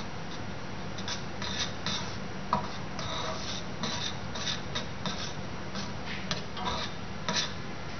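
A thin rod stirring and scraping partly melted sugar in a small stainless-steel saucepan: irregular short scratchy strokes with the odd sharper click, over a low steady hum.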